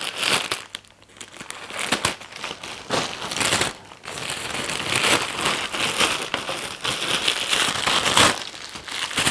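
Clear plastic packaging bag crinkling and rustling as it is cut with scissors and pulled open, in irregular handling noise with short pauses about a second in and near four seconds.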